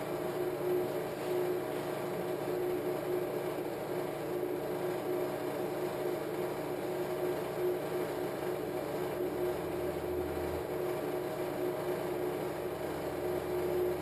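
Steady mechanical hum and hiss with two faint steady tones, joined by a low hum about ten seconds in.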